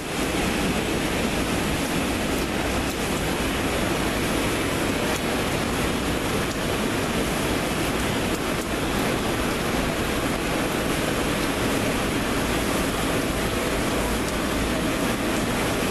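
Heavy rain falling, a steady rushing hiss with a low rumble underneath.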